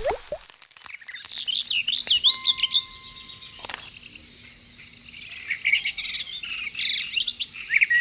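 Birdsong: many quick chirps and twitters, busiest early on and again in the second half. A water-drop plop sounds at the very start, and a soft steady chime tone rings briefly in the middle.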